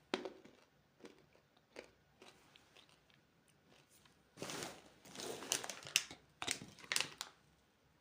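Candy being crunched and chewed close to the microphone: a few sharp single crunches in the first two seconds, then a dense run of crackling crunches from about four and a half to seven seconds.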